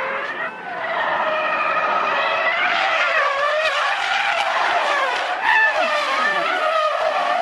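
Car tyres squealing as a sedan drifts in sustained slides: a loud, unbroken screech whose pitch wavers up and down as the slide changes.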